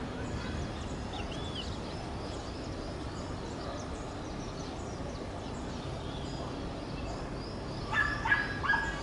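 Small birds chirping over a steady low background noise; near the end three loud, short animal calls follow one another quickly.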